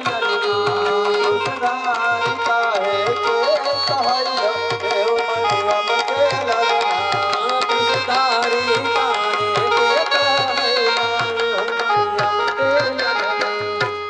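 Instrumental music: a Yamaha electronic keyboard playing a wavering, bending melody over held tones, with a hand drum keeping a steady beat of a few strokes a second.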